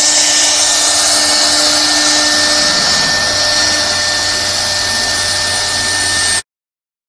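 CNC wood router spindle running and cutting wood: a steady high whine over a loud hiss, stopping abruptly near the end.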